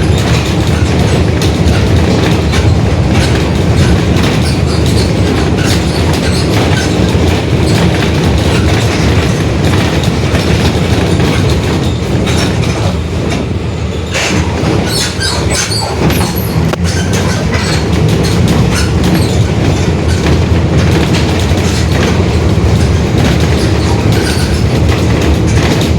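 Mercedes-Benz OF-1721 Bluetec 5 city bus under way: a steady low engine and drivetrain drone with constant rattling, easing slightly about halfway through before picking up again. The differential is growling, a drivetrain fault.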